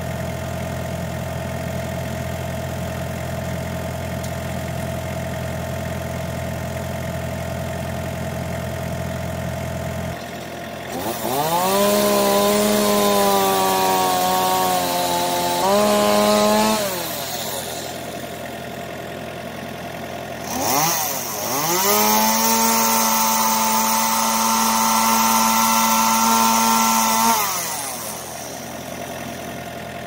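Stihl chainsaw revved up to full throttle twice, each time held for about five seconds before dropping back, over an engine idling steadily underneath.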